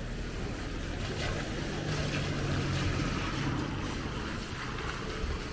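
Steady rain falling on a street, with a low engine hum that swells and fades about two seconds in.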